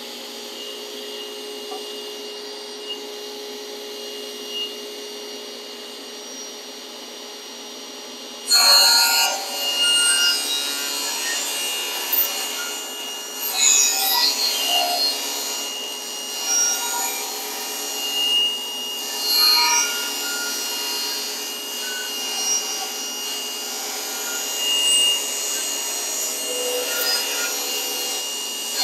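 Wooden boards being handled and slid against each other on a workbench: irregular wood scraping, rubbing and knocking that starts about a third of the way in, over a steady background hum.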